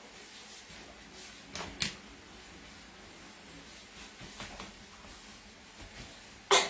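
Quiet room with a few soft taps and rustles of a paper towel and things being handled on a wooden table, then a sudden loud short burst near the end.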